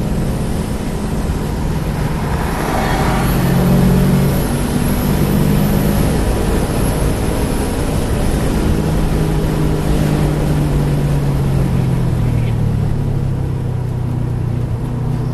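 Car engine heard from inside the cabin, pulling hard as the car accelerates, then dropping in pitch as it slows under braking, with wind and road noise.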